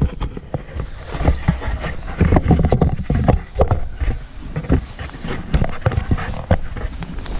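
Irregular knocks, clunks and scrapes of boots and hands on a bulldozer's steel engine hood as someone moves about on it, over a low rumble.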